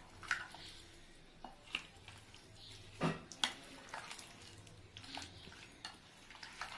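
A spoon stirring marinated paneer and masala in a glass bowl: soft mixing sounds with scattered light clicks of the spoon against the glass, the loudest about three seconds in.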